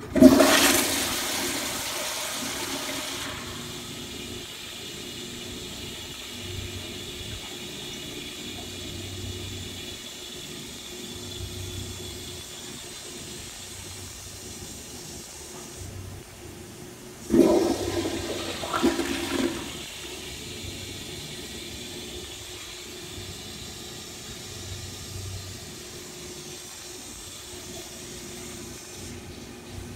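Kohler Wellworth Pressure Lite pressure-assist toilet flushing: a sudden loud whoosh that fades over about three seconds, then a steady hiss as the pressure tank refills, cutting off near the end. A second loud burst comes about 17 seconds in and lasts about two seconds.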